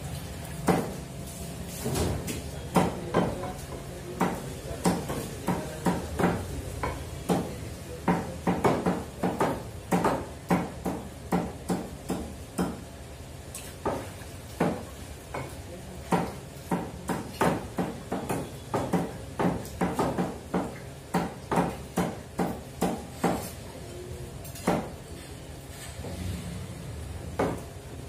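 Meat cleavers chopping raw chicken on thick wooden tree-trunk chopping blocks: an uneven run of sharp chops, two cleavers at work, at times a few chops a second, thinning out near the end.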